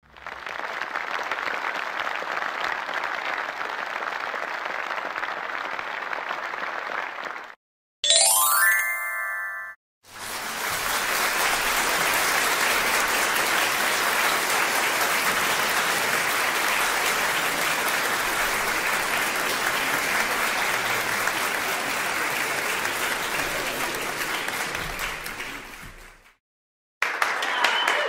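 Audience applause for about seven seconds, broken by a quick upward glissando of bell tones, then a longer stretch of applause that fades out.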